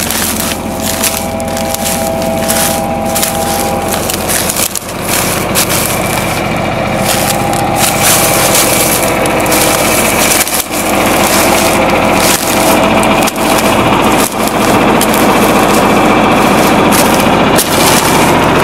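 Tractor engine running steadily, with dry crunching, crackling and knocks over it. The crackling comes from footsteps in dry corn stubble and from handling the grain drill.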